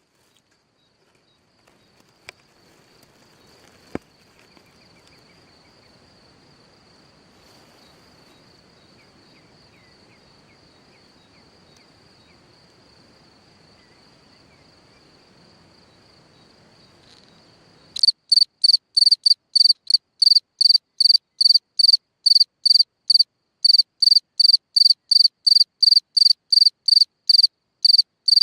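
A cricket at its hole in the ground singing. For most of the stretch there is only a faint steady high trill and a couple of soft clicks. About two-thirds of the way through, loud, evenly spaced chirps start, about three a second.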